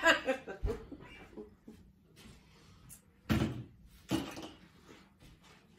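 Two dull thumps about a second apart near the middle, after a laugh tails off, with a fainter knock before them.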